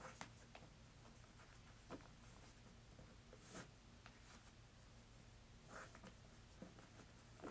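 Faint, scattered soft rustles and scratches of shoelaces being handled on high-top sneakers, about six in all, the strongest a little past halfway, over a low steady hum.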